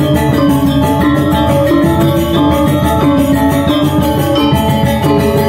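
Balinese gamelan gong ensemble playing a tabuh: bronze metallophones ring out fast interlocking strokes over held tones, with two kendang drums and a small kettle gong keeping the beat.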